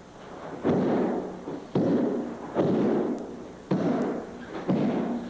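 Judo breakfalls on a padded mat: bodies landing and arms slapping the mat five times, about once a second, each a sudden slap that fades out quickly. The slap is the breakfall technique that takes the force and pain out of the fall.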